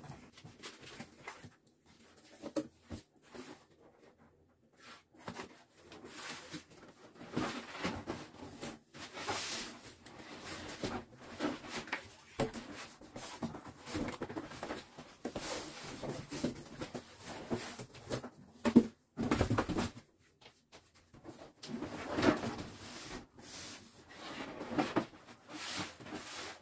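Cardboard shipping box being opened and unpacked by hand: flaps rustling and scraping, cardboard sliding against cardboard, with irregular knocks and one sharp knock about two-thirds of the way through.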